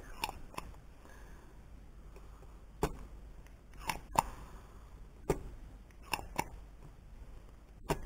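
Irregular sharp clicks and taps, about nine in all, from small tools and the plastic remote control and its circuit board being handled on a workbench.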